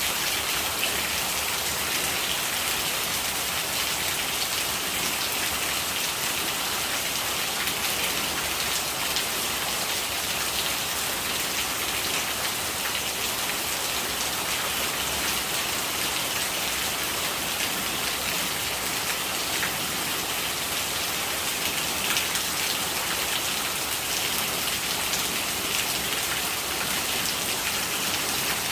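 Steady rain falling, an even hiss with individual drops ticking here and there.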